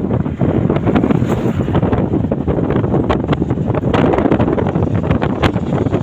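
Wind buffeting the microphone of a vehicle in motion, with road noise beneath: a loud, steady rumble broken by many short gusty crackles.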